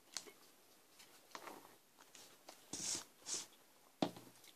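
Eating and handling noises from an instant pasta cup: a fork against the cup and its peeled-back foil lid, with soft rustles, two brief hissy sounds about three seconds in, and a sharp tap near the end.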